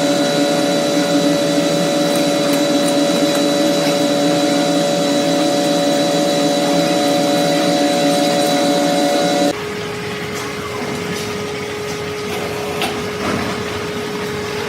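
A metalworking machine tool running steadily, a whine of several fixed pitches over a grinding noise. About nine and a half seconds in, the sound switches abruptly to a quieter, steady hum with a single tone.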